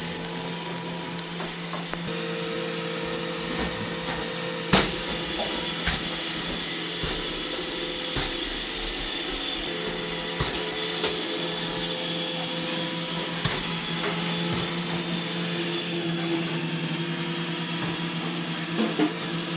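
iRobot Roomba E6 robot vacuum running steadily, a continuous motor hum and whine, with occasional sharp knocks, the loudest about five seconds in.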